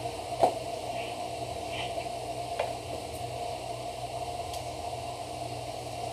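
Steady hiss and low hum of background noise, with a few light clicks from a screwdriver and parts being handled inside an opened Jura Z6 coffee machine; the sharpest click comes about half a second in.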